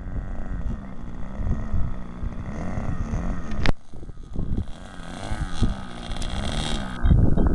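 Small .40-size glow engine of an RC Piper Cub model plane running at low throttle while it taxis, its pitch rising and falling as the throttle is worked. Wind buffets the microphone, loudest near the end.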